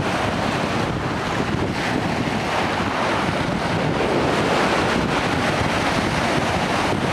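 Choppy lake waves washing and breaking against rocks, with wind buffeting the microphone: a steady rush with no separate crashes standing out.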